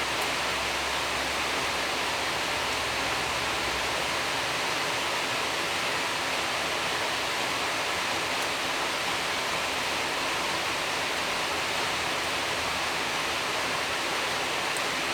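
A steady, even hiss that stays unchanged throughout, with no distinct chewing clicks or other events standing out.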